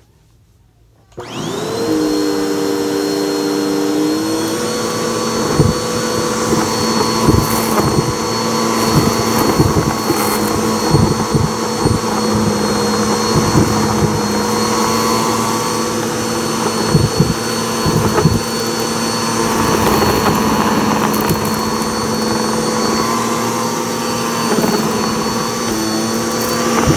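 Red upright vacuum cleaner switching on about a second in, its motor whine rising and settling into a steady run. Irregular crackles and clicks come through as it sucks up shredded sisal rope, feathers and pom-poms from the carpet.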